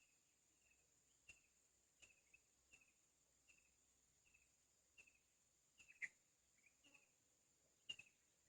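Faint bird chirping, short falling notes repeated about once a second, over a steady high-pitched insect drone.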